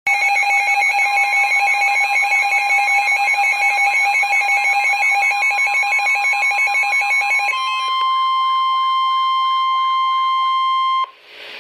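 NOAA Weather Radio emergency alert signal. For about seven and a half seconds it sends a rapid warbling burst of digital data tones, the SAME header. Then comes a single steady warning alarm tone that cuts off sharply about a second before the end, announcing that a warning broadcast follows.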